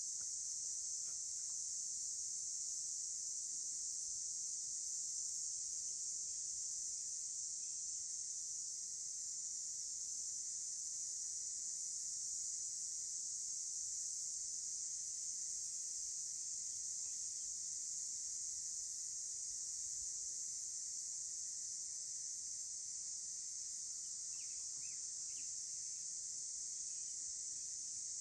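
A steady, high-pitched chorus of insects droning without a break, with a few faint chirps near the end.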